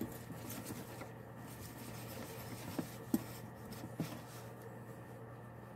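Wooden spoon stirring flour and water into a shaggy pizza dough in a glass bowl: soft, scratchy scraping, with a few sharp taps around the middle.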